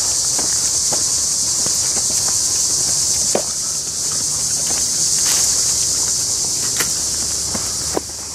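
A steady, high-pitched chorus of insects, with several people's footsteps scuffing and crunching through leaf litter and undergrowth as irregular clicks.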